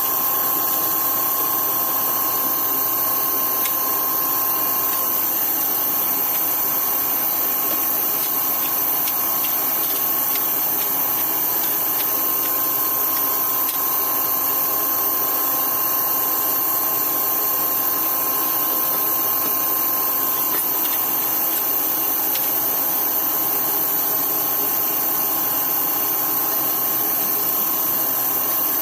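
An electric power tool's motor running steadily at constant speed, a continuous hum with fixed tones and no change in load.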